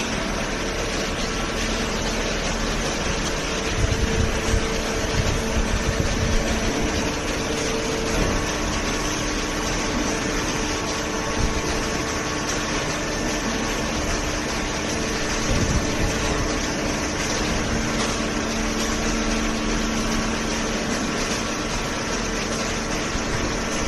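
Vertical hydraulic baler's pump unit running steadily with a droning hum, with a few irregular knocks about four to seven seconds in and again around sixteen seconds.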